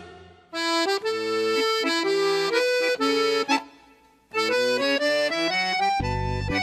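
Accordion played solo: a few held chords, a short pause, then a quick rising run of notes, with low bass chords coming in near the end.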